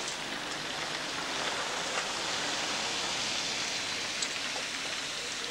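Steady outdoor hiss on a wet street, with a couple of faint knocks about two seconds in and again near four seconds.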